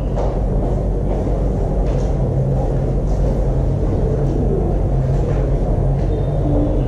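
A steady low rumbling hum with a few faint knocks.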